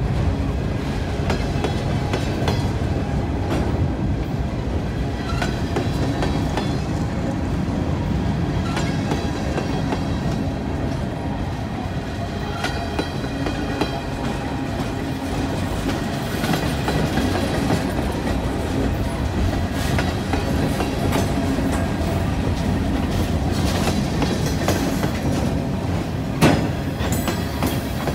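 Covered hopper and tank cars of a freight train rolling past: a steady rumble of steel wheels on rail with wheels clicking over rail joints, and one sharp clank near the end.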